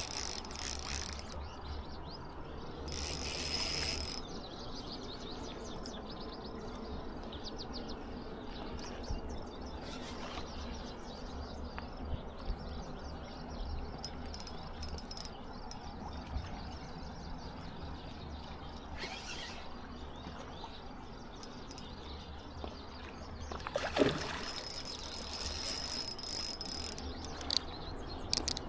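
Fishing reel being cranked with a steady mechanical whir while fighting a fish hooked in the fin, with two brief louder noises partway through.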